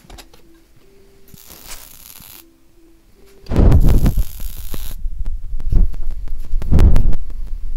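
Wire-feed welder arc crackling and spitting as it welds clamped horseshoe steel, starting suddenly about three and a half seconds in and going on, loud and uneven, until near the end.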